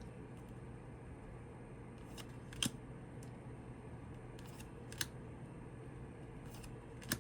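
Light clicks and snaps of tarot cards being flipped and set down, a handful spaced a second or two apart, over a faint steady hum.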